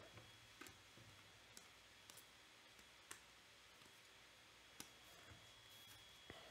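Faint, scattered clicks of baseball trading cards being flipped through by hand and set down on a table, about half a dozen in all against near silence.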